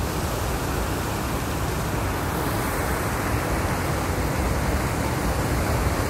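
Water pouring over a low concrete weir: a steady, unbroken rush with a deep rumble underneath.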